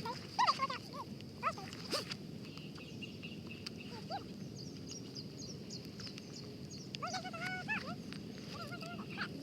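Outdoor animal calls: scattered short calls that rise and fall in pitch, a cluster of them just after the start and another about seven seconds in, with quick high chirps in between over a steady high hiss.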